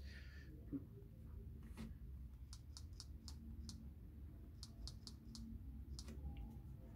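Faint, quick taps as a PIN is typed on a smartphone's touchscreen keypad, a dozen or so short clicks in two runs.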